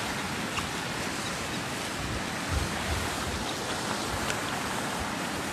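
Steady rush of muddy floodwater flowing past, with a few low bumps of wind on the microphone.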